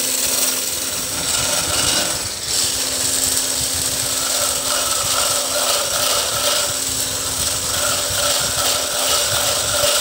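AGARO Marvel 800-watt hand blender running with its whisk attachment, whisking flour, milk and sugar batter in a plastic beaker: a steady motor whine over a whirring churn. The sound dips briefly about two and a half seconds in.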